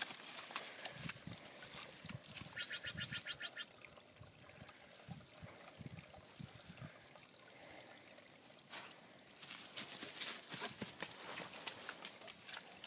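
Doberman pushing through dry grass and wading in a muddy stream: rustling grass, soft footfalls and scattered small splashes, busiest a little after the middle. A short rapid trill sounds about three seconds in.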